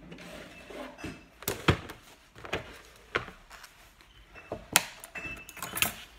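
Ring binder being handled: taken from the shelf and opened, giving a series of separate sharp knocks and clicks with faint paper handling in between.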